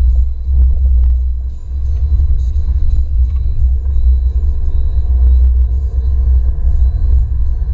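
Alfa Romeo MiTo driving at town speed, heard inside the cabin: a steady deep rumble of engine and road.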